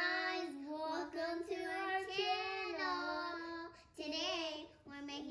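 A child singing a short tune in long held notes, with a wavering note about four seconds in.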